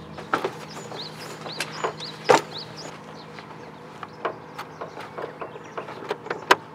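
Birds chirping in short rising calls over a scatter of sharp clicks and knocks, with a steady low hum underneath.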